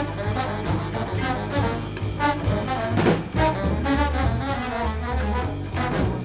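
Free-leaning jazz quintet of trombone, baritone saxophone, cello, double bass and drums playing together. Trombone lines stand out over busy drum strikes and low bass notes.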